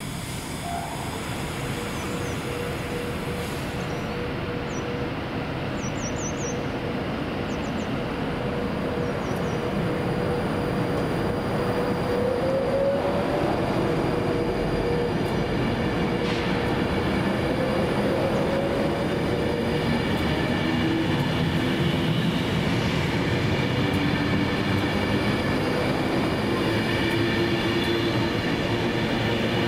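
Class 390 Pendolino electric train pulling away, its traction whine rising in pitch twice over steady running and rail noise that gradually grows louder.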